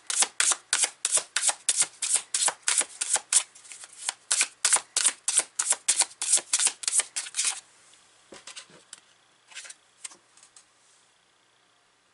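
A tarot deck shuffled by hand, the cards slapping together in a quick, even rhythm of about four to five strokes a second. The shuffling stops about two thirds of the way through, followed by a few soft taps of cards being handled.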